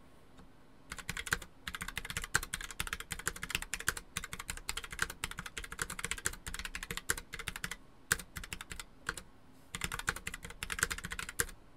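Fast typing on a Logitech POP Keys wireless mechanical keyboard: a rapid run of keystrokes starting about a second in, thinning to a few scattered clicks about two-thirds of the way through, then picking up again.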